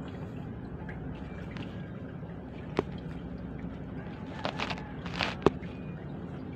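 Hand knocking and rubbing against the recording phone, a few sharp knocks and scrapes about three, four and a half, and five and a half seconds in, over a steady low hum.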